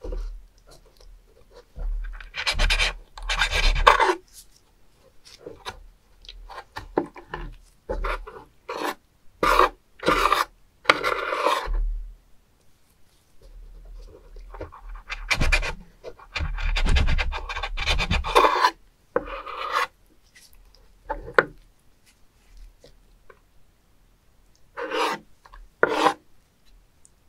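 Kitchen knife slicing live spoon worms and scraping across a wooden cutting board. The strokes come in irregular runs with short pauses between.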